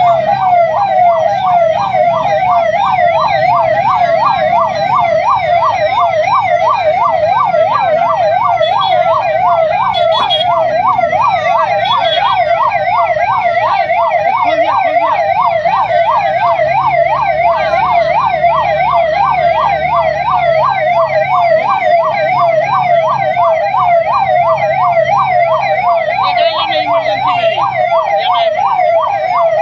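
Ambulance siren sounding nonstop in a fast wailing yelp, rising and falling about three times a second.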